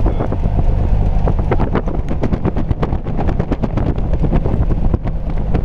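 Engine and propeller of a light single-engine plane running, a steady low drone heard inside the cabin, with wind buffeting the microphone.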